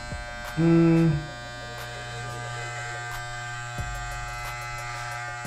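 Corded electric hair clippers buzzing steadily while cutting hair at the back of the neck, with a brief louder tone about half a second in.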